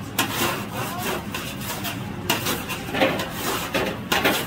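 Long serrated knife sawing back and forth through the crisp, crumb-coated crust of a deep-fried sandwich, a crunchy rasping in several strokes.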